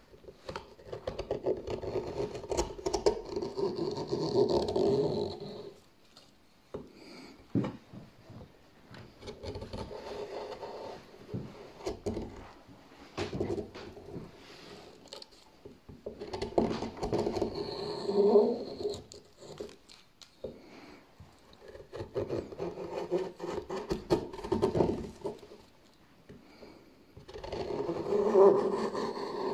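Hand-forged swan neck gouge cutting into a wooden board: five long scooping strokes, each a few seconds of scraping as the edge shears off a curled shaving, with short pauses between.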